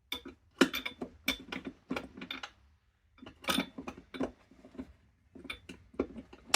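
Metal hand tools clinking and clattering as they are picked through, in three short runs of sharp knocks with a light metallic ring.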